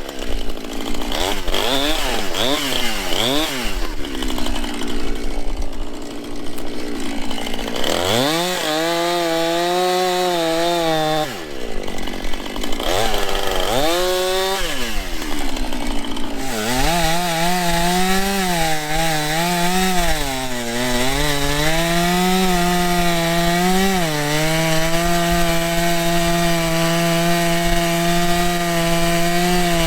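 Two-stroke chainsaw cutting a fallen tree: quick throttle blips at first, then revving up hard and running at high revs in the cut, the pitch sagging and recovering as the chain meets the wood.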